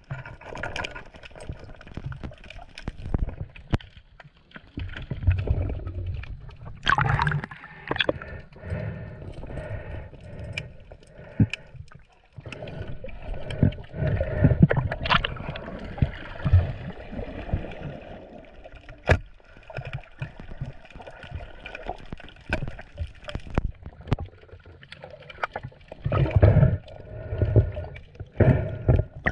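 Seawater sloshing and gurgling around a spear fisher moving through the water, with irregular splashes and scattered sharp clicks and knocks.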